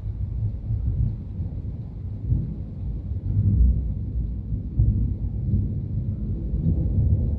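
Thunder from a lightning storm, a deep rumble that swells and fades in waves through the whole stretch, loudest about three and a half seconds in.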